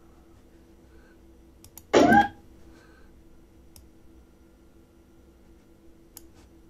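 Scattered computer mouse clicks over a faint steady hum. About two seconds in comes a short, loud snippet of played-back recording, about a third of a second long, with a pitch that bends upward.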